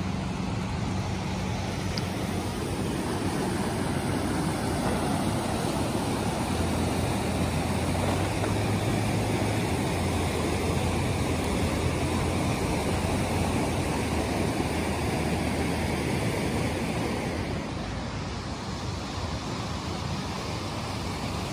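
Steady rush of a fast mountain river running over rapids.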